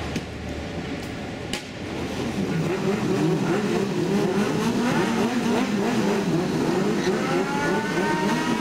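Several sport motorcycle engines revving hard together, their pitch rising and falling rapidly, while the bikes do a burnout that sends up tyre smoke. The revving starts about two seconds in, after a quieter stretch with two sharp clicks.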